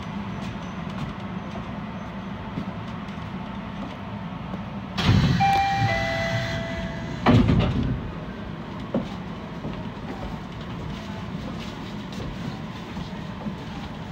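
Suspended monorail car standing at a platform with a steady low hum. About five seconds in comes a burst of hiss with a falling two-note chime, then a heavy thump about two seconds later: the car's sliding doors working.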